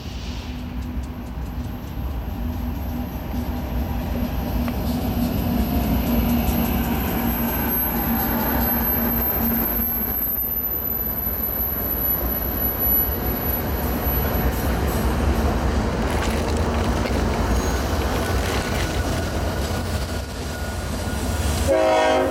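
A string of BNSF diesel locomotives approaching and rolling past close by, their engines a steady low hum over the rumble of wheels on the rails. The sound builds over the first few seconds and stays loud, with a short run of rapid clicks from the wheels near the end.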